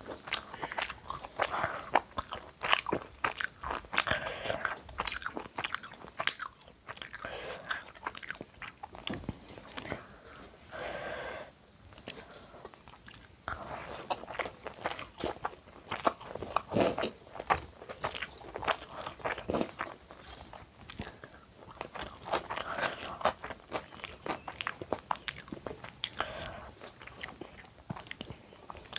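A person eating chicken biryani close to the microphone: chewing and biting, with irregular wet clicks and crunches and a few brief quieter pauses.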